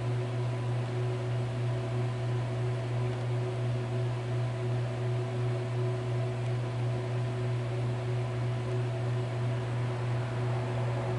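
A steady low electrical hum with a hiss over it, unchanging in pitch and level.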